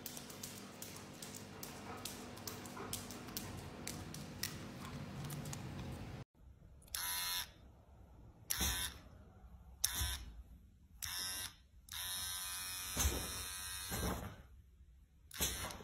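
Electric hair trimmer buzzing in short bursts as it is switched on and off, six times in the second half, the longest about two seconds. Before that, a steady hiss with faint clicking.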